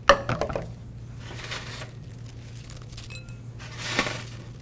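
A sharp clank just after the start as a metal pan is set down on the stovetop. Then a steady low hum, and a soft scraping rustle about four seconds in as pieces of toasted pound cake are picked up off a metal sheet pan.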